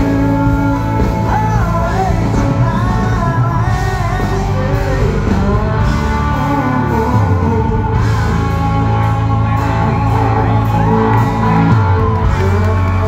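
Live country-rock band playing through a concert PA: a male lead vocal sung over electric guitars, heard from within the crowd.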